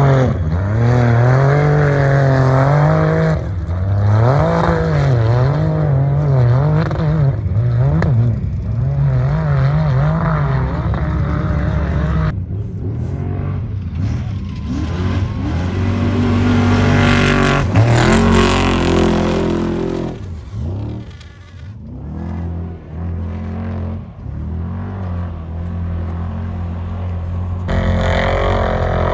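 Trophy truck engines racing, in several short clips. In the first, the engine's pitch swings up and down again and again as the throttle is worked. After a cut, a truck's engine climbs in pitch and passes loudly.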